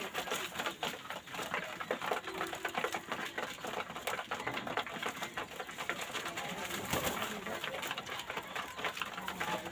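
Pigeons cooing, with a low held coo a little over two seconds in, over a steady patter of small clicks and taps.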